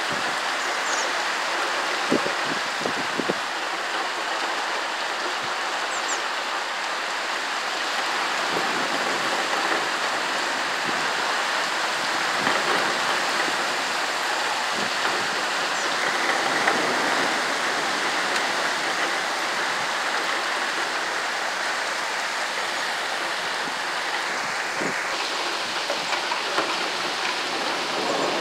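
Heavy storm rain falling steadily onto a paved square, a continuous hiss of downpour.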